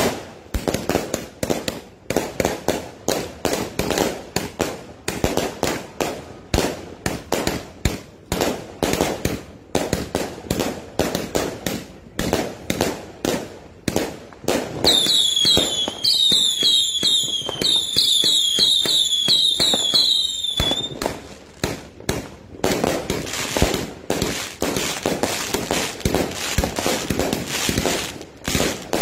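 A consumer fireworks cake firing shot after shot, with sharp bangs about three a second. For about six seconds from halfway through, the shots carry short whistles that fall in pitch, about two a second, and this is the loudest stretch.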